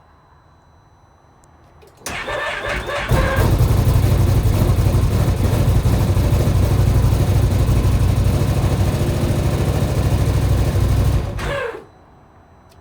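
A 2025 XMR 1000's V-twin engine is started: the electric starter cranks for about a second, then the engine catches and runs steadily for about eight seconds before it is shut off suddenly. The owner hears a weird noise from the machine when it starts.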